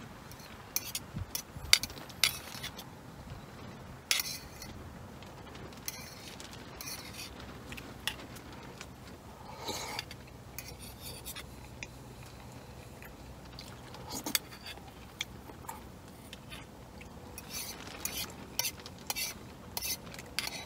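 Spoon clinking and scraping against a metal camping pot while eating from it, in irregular short clinks and scrapes, the loudest a couple of seconds in.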